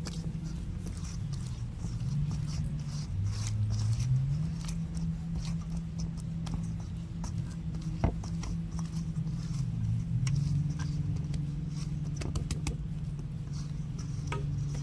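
Hands patting and rubbing oil over a soft dough, with light pats, scrapes and clicks. A steady low hum runs underneath and changes pitch a few times.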